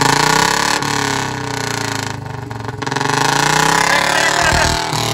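Royal Enfield Bullet motorcycle's single-cylinder engine revved hard with an open exhaust and no silencer. The pitch climbs, drops back about two seconds in, then climbs again, with a few low thumps near the end.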